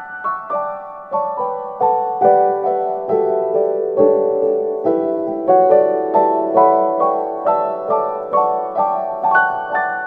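Background music on piano: single notes struck at an even pace of about two a second, each ringing and fading into the next.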